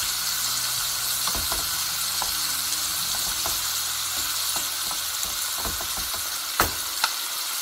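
Pork, onions and tomatoes sizzling steadily in a frying pan while a wooden spatula stirs them, with scattered light clicks and scrapes. Two sharp knocks come near the end.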